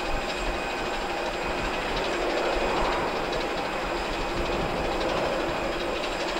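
Boeing 747-8 freighter's four GEnx turbofan engines running at taxi power after landing: a steady jet rumble with a few held whining tones over it.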